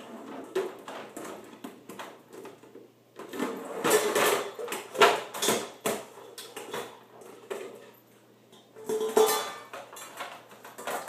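Metal dog bowl clattering, knocking and scraping inside a wire dog crate as a puppy pushes it around trying to flip it. The knocks come in bursts, busiest about four to six seconds in and again around nine seconds, with a short metallic ring after some hits.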